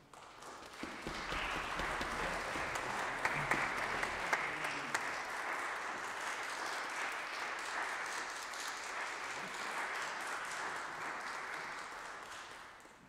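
Audience applauding, a steady wash of clapping that builds up within the first second and fades away near the end.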